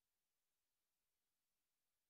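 Near silence: the sound track is empty apart from a faint steady hiss.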